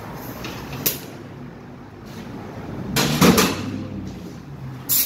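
Knocks and clatter of metal parts and tools being handled on a steel workbench during transmission teardown. There is a single click about a second in, a louder cluster of knocks about three seconds in and another sharp click near the end, over a steady shop hum.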